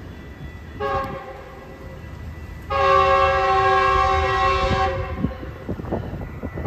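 An approaching Metrolink commuter train sounds its horn: a short blast about a second in, then a longer, louder blast of about two seconds, over a low steady rumble.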